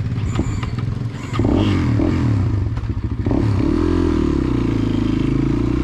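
Motorcycle engine revving up and down as the bike pulls away, then running steadily. A few short clicks and clatter come in the first second.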